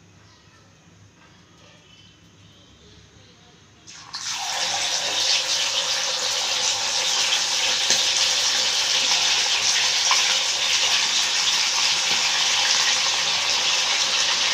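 Masala-coated sand whiting (kilanga fish) going into hot oil in an iron kadai about four seconds in, setting off a sudden loud sizzle of deep frying that keeps up steadily.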